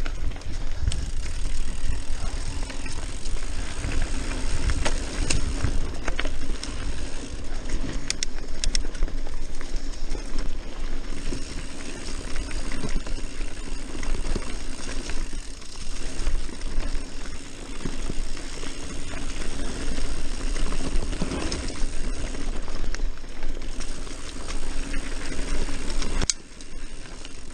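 Mountain bike riding fast down a dirt singletrack: wind rumbling on the action camera's microphone over the tyres rolling on dirt, with the bike rattling and clicking over bumps. The noise drops briefly about a second before the end.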